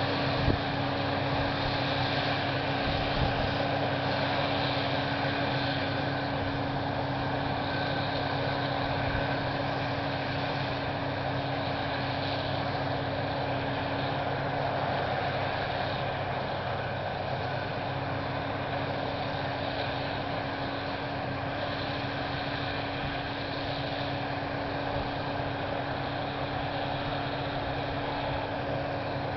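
John Deere 7320 tractor's diesel engine and a John Deere 854 round baler running steadily together, a continuous mechanical hum with two light knocks in the first few seconds.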